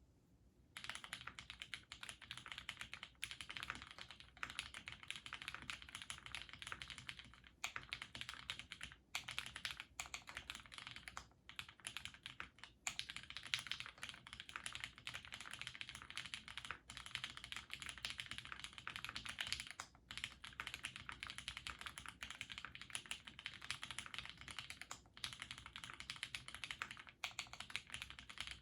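Fast continuous typing on a Duck Orion v2.5 mechanical keyboard with a plastic plate, lubed Cherry retooled black linear switches and GMK keycaps, with a few short pauses between bursts. It starts about a second in.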